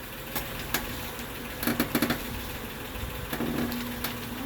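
2007 Honda Odyssey's 3.5 V6 running, with several sharp clicks, a quick cluster of them about two seconds in, and a steady low hum that comes in briefly there and again for about a second near the end.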